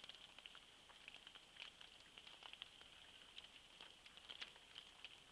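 Near silence: faint, irregular pattering of raindrops, over a faint steady high-pitched whine.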